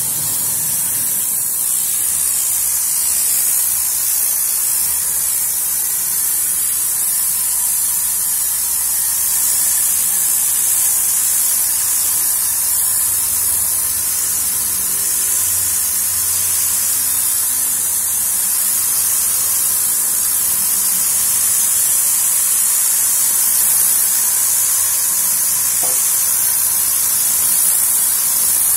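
Tornador compressed-air cleaning gun blasting a steady, high hiss of air and cleaning mist against the fabric headliner inside a car's cabin.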